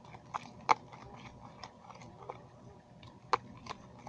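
Slime being mixed in a clear plastic cup just after activator is added: irregular sticky clicks and squelches, with two sharper clicks, one under a second in and one about three seconds in.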